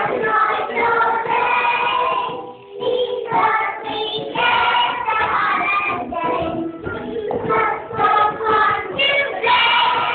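A group of young children singing a song together, with a brief pause between phrases about two and a half seconds in.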